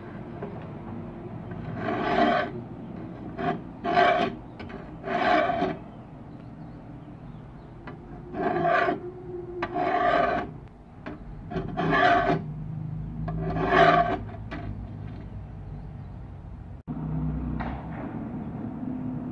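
Large hand file rasping across a small steel file clamped in a bench vise, about eight separate strokes in uneven groups. The old file is being shaped into a knife blank.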